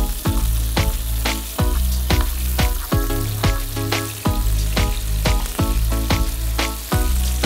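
Chicken shashlik skewers sizzling as they fry in oil in a nonstick pan, turned with metal tongs. Background music with a quick, steady beat and bass plays over the frying.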